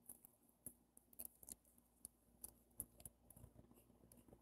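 Near silence with faint, irregular small clicks and taps: handling noise from the phone being held close to its microphone.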